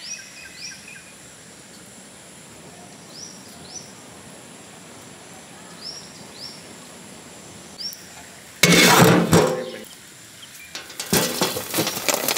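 Birds chirping in short, repeated falling calls over a steady outdoor hiss. About eight and a half seconds in comes a sudden loud rushing noise lasting about a second, and near the end a second, rougher stretch of clattering noise.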